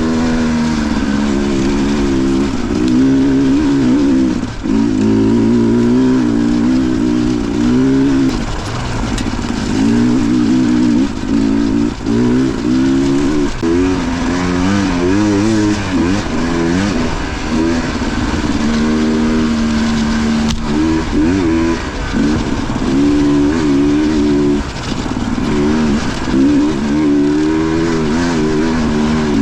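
Dirt bike engine running under load on a trail ride, its pitch rising and falling with the throttle, with brief let-offs every few seconds.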